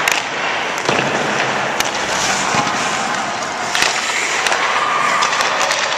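Hockey skates scraping and carving on rink ice, with several sharp clacks of sticks striking the puck.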